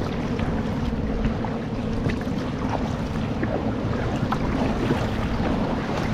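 Wind buffeting the microphone over water splashing and rushing along a moving kayak's hull, a steady noise with small scattered splashes.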